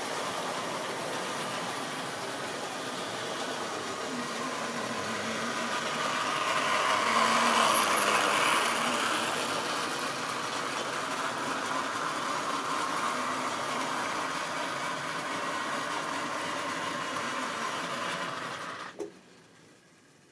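OO-gauge model freight train running on the layout's track: a steady electric motor hum with wheels rattling over the rail joints. It grows louder for a few seconds about a third of the way in, then cuts off sharply with a click near the end.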